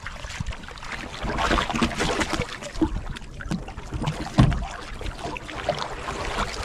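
Handling noise on a sea-fishing kayak while a conger eel is fought at the side: irregular knocks and scuffs with water and wind noise. The loudest is a thump about four and a half seconds in.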